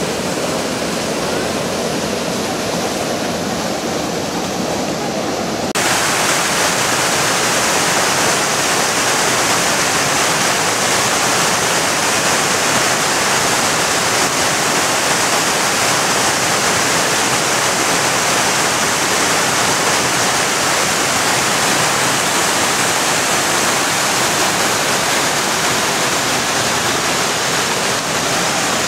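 Whitewater of a mountain river cascading over granite slabs and boulders: a steady rush of falling water, which turns suddenly louder and brighter about six seconds in.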